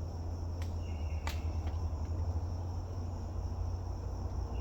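Steady high-pitched chorus of forest insects such as crickets, over a low steady rumble, with two brief sharp clicks about a second in.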